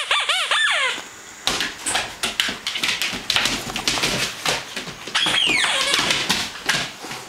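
Squeaky hippo toy being chomped by a Newfoundland puppy. A quick string of high squeaks comes in the first second, then several seconds of rapid, irregular squeaking and clicking as she bites down on it, with one long falling squeak about five seconds in.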